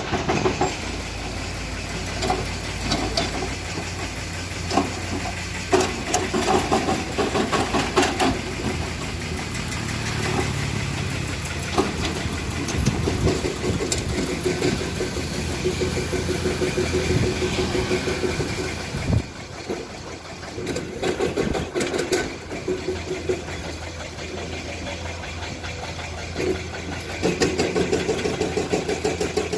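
Komatsu PC200 excavator's diesel engine running under load as it works, with irregular knocks and clanks as the bucket scrapes and strikes broken rock. The engine eases off briefly about two-thirds of the way through and comes up again near the end.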